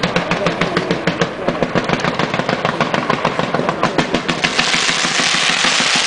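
Ground fireworks going off: a rapid string of sharp reports, many a second, gives way about four and a half seconds in to a loud steady hiss of spark fountains.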